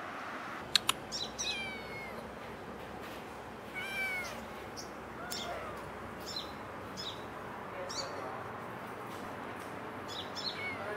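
Kitten meowing repeatedly in short, high-pitched mews spread over several seconds. Two sharp clicks come about a second in.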